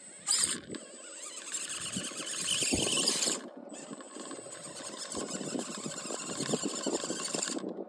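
Small RC rock crawler's electric motor and geared drivetrain whining under load as it climbs a steep rock face, with tyres scrabbling on the rock. It comes in surges, loudest about two to three seconds in, easing briefly after that and picking up again.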